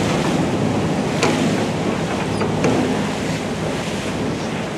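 Fishing boat under way: a steady engine hum beneath rushing water, with wind buffeting the microphone.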